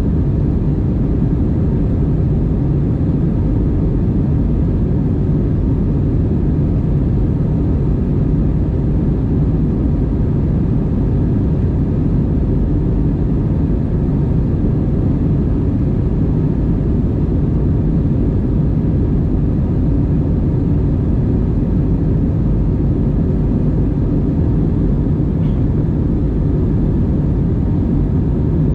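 Steady low roar inside the cabin of an Airbus A320-232 in the climb: its IAE V2500 turbofan engines and the airflow over the fuselage.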